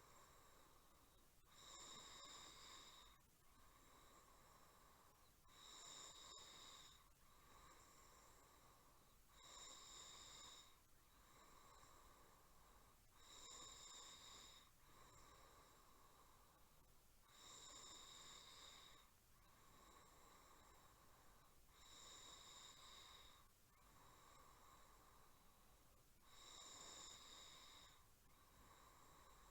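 Faint snoring: a person's slow breathing with a snore, a louder breath about every four seconds, seven times, with quieter breaths in between.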